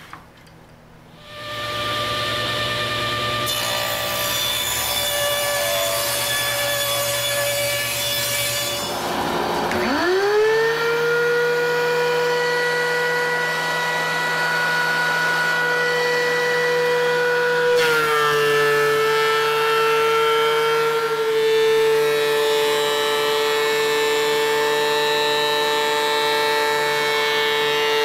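A power tool runs for the first several seconds. Then a benchtop thickness planer's motor starts up, its whine rising quickly and levelling off, and it runs steadily. A few seconds later the pitch drops a little as a board feeds through and the cutterhead takes wood off.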